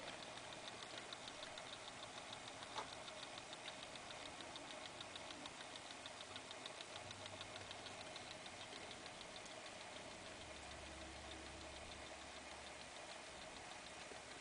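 Faint, fast, even ticking with a low hum from a vintage Sears Tradition flip-number alarm clock's electric motor and gear train running; the ticking fades about ten seconds in as the hum grows.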